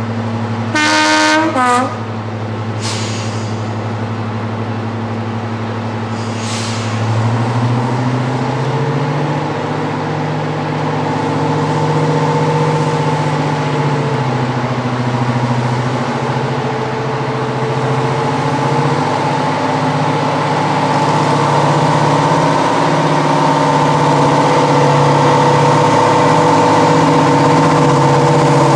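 Heritage diesel locomotive sounds its horn, a long blast and a short second note, then its engine runs on and rises in pitch as it is opened up, staying loud and steady.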